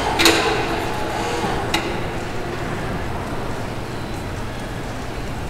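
Steady background din of a busy indoor shopping centre, with two sharp knocks: a loud one about a quarter second in and a smaller one near two seconds in.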